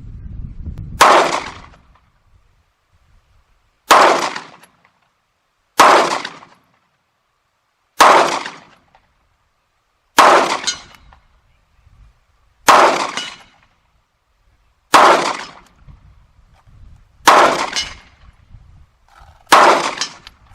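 FN 509 9mm pistol firing nine single shots, slow aimed fire at about one shot every two seconds, each report loud and sharp with a short echoing tail.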